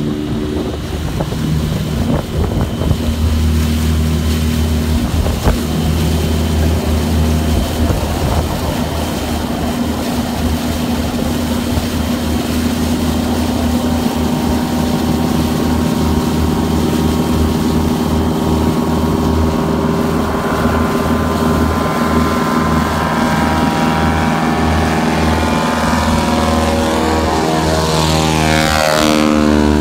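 De Havilland Beaver floatplane's radial engine and propeller at takeoff power, growing louder as the plane lifts off the water and comes toward the listener. Its pitch drops sharply as it flies low past near the end.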